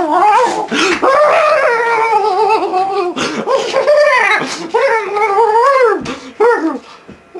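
A young man's voice howling and wailing in long, wavering, high-pitched cries, breaking into shorter yelps near the end.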